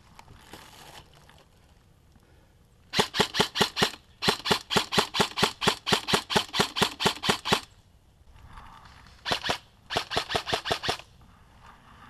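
G&G M4 airsoft rifle firing rapid strings of shots, each shot a sharp snap, about six or seven a second. There is a short string, a long string of about three seconds, a quick pair, and a final short string.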